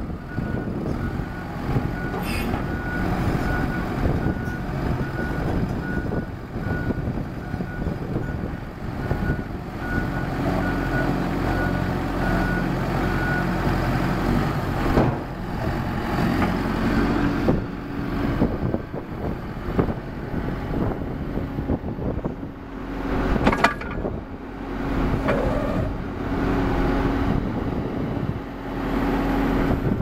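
Cat D3K LGP crawler dozer's four-cylinder diesel engine running, with the machine's backup alarm beeping steadily at an even rate until about halfway through. From about a third of the way in the engine note firms into a steadier, stronger hum as the dozer is worked, with a few sharp clanks later on.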